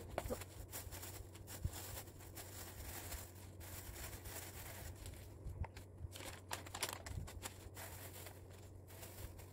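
Faint rustling and crinkling of paper with scattered light clicks and knocks as vegetables and a paper-lined plastic storage box are handled, over a low steady hum.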